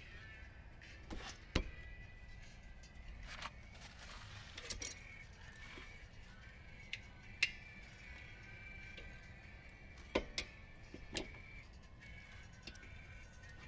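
A handful of sharp metallic clicks and clinks at irregular intervals, from tools and brake parts being handled while reassembling a rear disc brake caliper.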